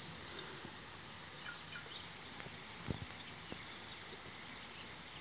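Light rain falling: a faint, steady hiss, with a single soft knock about three seconds in.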